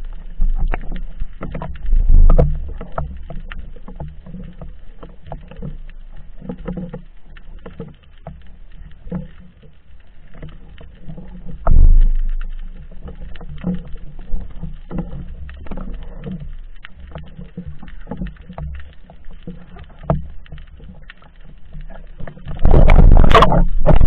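Muffled underwater noise picked up by a speargun-mounted camera: a low rumble of moving water with irregular knocks and bumps, and louder thumps about two and twelve seconds in. Near the end a loud rush of water noise suddenly takes over.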